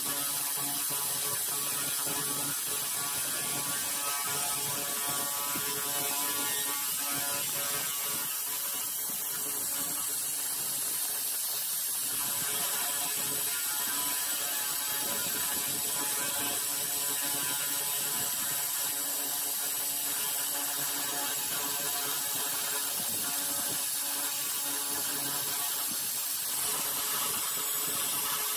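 Handheld 300 W pulsed fiber laser cleaner firing steadily, a fast, even crackling buzz as the beam ablates rust from metal.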